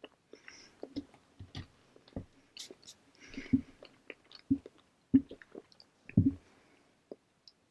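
A person chewing a mouthful of English muffin: irregular soft mouth clicks and wet smacks, with a few louder, deeper chewing thumps about a second apart in the second half.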